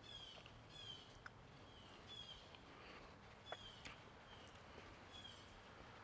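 Faint bird chirping: short, slightly falling chirps repeated about every three-quarters of a second, with a few faint clicks.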